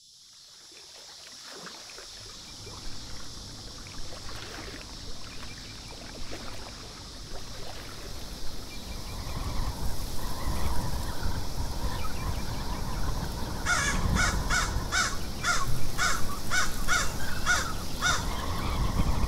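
A crow cawing in a quick run of about a dozen harsh calls a little past the middle, over outdoor ambience with a low rumble that fades in from silence at the start.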